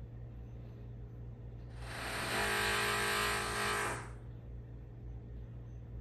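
Power-tool noise from construction work in a neighbouring townhouse, heard indoors: a loud hissing burst of about two seconds starting near two seconds in, over a steady low hum.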